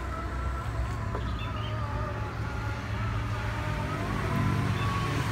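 Isuzu Panther four-cylinder diesel engine idling steadily, heard close in the open engine bay, with a thin wavering whine riding above the low rumble.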